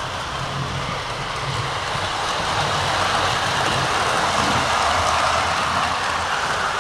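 O gauge model train of Lionel 0-6-0 dockside switcher locomotives with a rotary snowplow and cars, rolling on track on a wooden floor: a steady whirring rumble of motors and wheels that grows louder in the middle as the train passes close by.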